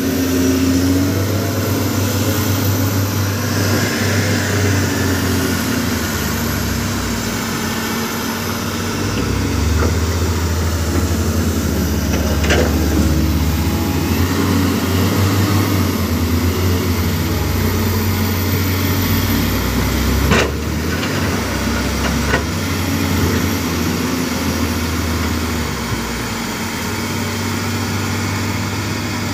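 Diesel engines of a wheel loader and a crawler excavator running, their engine note rising and falling as they work. A few sharp knocks are heard, the loudest about twenty seconds in.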